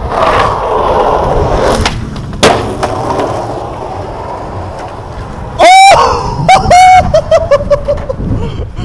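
Skateboard wheels rolling over rough concrete with a sharp clack about two and a half seconds in. Just past halfway comes a very loud pitched cry that rises in pitch, then a run of short cries that fall in pitch over the next two seconds.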